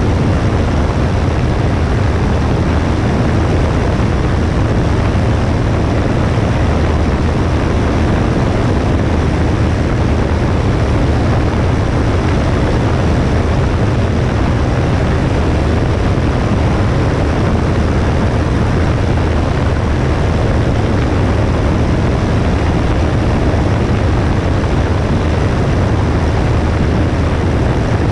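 Cessna 172S's four-cylinder Lycoming engine and propeller running with a steady low drone, mixed with a constant rushing noise at the wing-mounted camera.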